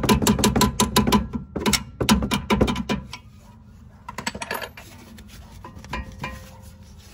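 Hand socket ratchet clicking rapidly, about seven clicks a second, as a bolt is turned. It stops about three seconds in, followed by a few light knocks.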